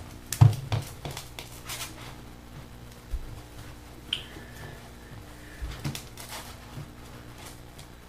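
Handling noise on a tabletop: a few light knocks and clicks with brief rustling swishes, and a short faint high tone about four seconds in.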